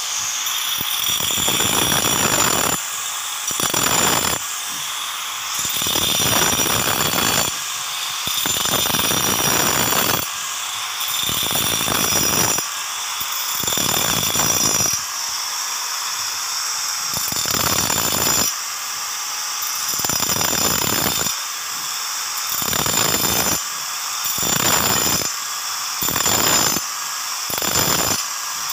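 Angle grinder with a cutting disc running with a steady high whine while it cuts grooves into a flour-mill millstone, dressing the worn grinding face. The disc bites into the stone in short repeated strokes, a loud rasping grind roughly once a second.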